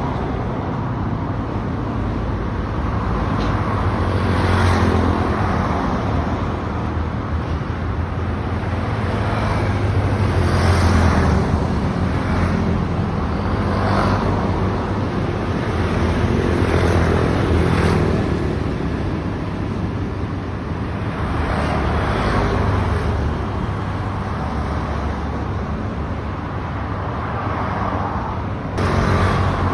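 Road traffic: a steady low engine rumble with vehicles passing every few seconds, each swelling and fading, and a sudden louder noise just before the end.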